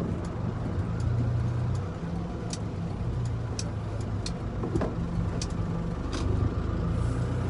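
Delivery truck's engine running while driving, heard from inside the cab as a low drone, with scattered light clicks and rattles.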